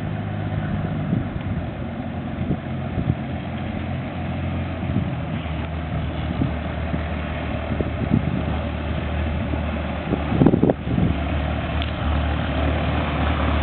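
Extra 300 aerobatic plane's six-cylinder piston engine idling as it taxis, a steady low drone with the propeller turning. The drone drops slightly in pitch about five and a half seconds in, and a brief louder burst of noise comes about ten and a half seconds in.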